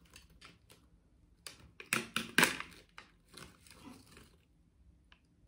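Red packaging of a Jolochip being torn and crinkled open by hand: a run of short rustles and rips, loudest about two seconds in, then fading.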